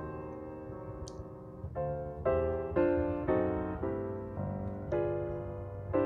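Background piano music: a slow melody of notes and chords, struck about twice a second.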